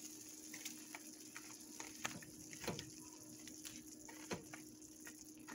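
A spoon stirring through cooked shrimp in a pan, making soft scattered clicks and a few louder scrapes, over a steady hum from a noisy ceiling fan.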